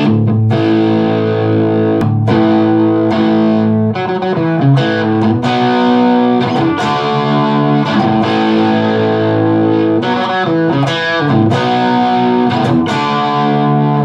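Semi-hollow electric guitar played through a Line 6 Helix on a Marshall-style amp model and heard in the room through a pair of Mackie Thump Go speakers: strummed chords ringing out and sustaining, with repeated fresh strums.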